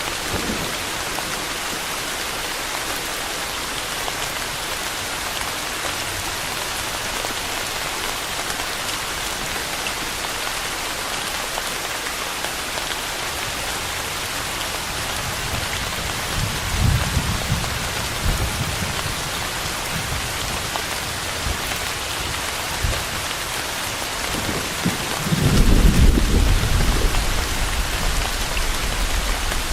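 Steady rain falling hard on surfaces, an even hiss throughout. Low thunder rumbles roll in about halfway through, and a louder, longer rumble comes near the end.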